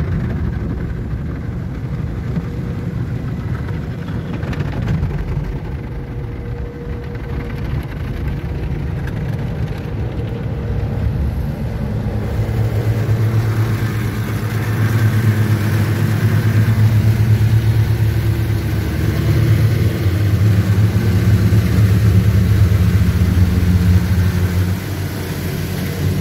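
Tunnel car wash equipment heard from inside the car: water spray and wash brushes working over the body. About halfway through, a louder steady machine hum sets in under the rinse water.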